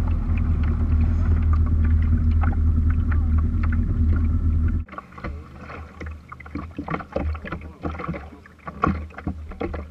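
A small boat's motor running steadily, a low hum with a few fixed tones carried through the deck, which cuts off suddenly about five seconds in. After that, scattered light knocks and taps on the boat's deck, with faint voices.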